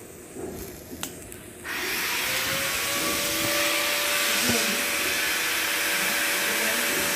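Argon (TIG) welding arc struck about two seconds in, then a steady hiss with a faint steady whine underneath. A few light clicks before the arc starts.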